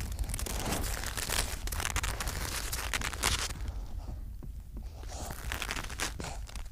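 Crisp snow crunching and crackling right at the microphone as a seal pup shuffles over the snow and pushes its muzzle into it: a dense crackle for the first three seconds or so, then thinner, scattered crunches.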